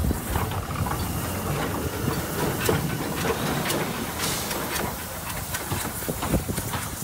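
Saddle-tank steam locomotive running slowly past: steady hissing of steam with irregular clanks and clicks from its wheels and motion on the rails.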